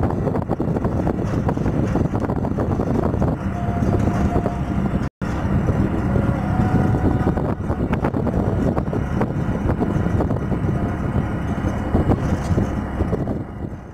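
A moving road vehicle heard from on board: a steady engine and road rumble, cut off for an instant about five seconds in and fading down near the end.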